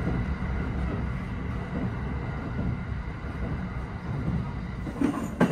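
Running noise heard inside a Japan Railways double-decker train car while it travels: a steady low rumble with an even hiss over it. A few sharp knocks come about five seconds in.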